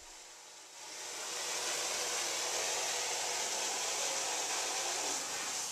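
Steady rushing hiss of water flowing from a smooth-bore fire hose nozzle with its tip removed, aimed out a window to pull smoke out of the room. It starts about a second in, builds quickly to a steady flow, and cuts off abruptly at the end.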